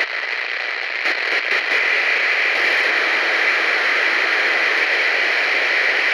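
Steady hiss of static, an added sound effect for a video-tape glitch transition, with a few faint crackles between one and two seconds in.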